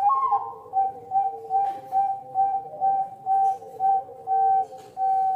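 A bird whistling one clear note over and over, about two a second, the notes growing longer towards the end. A lower steady tone runs underneath.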